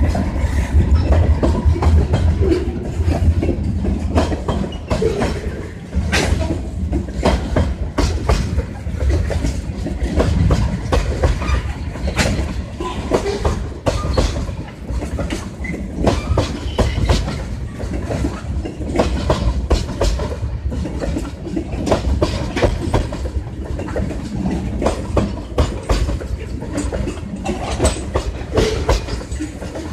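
Freight cars, mostly tank cars, rolling past, their steel wheels clacking over the rail joints in a rapid, uneven run of clicks over a deep rumble. The rumble is strongest in the first few seconds.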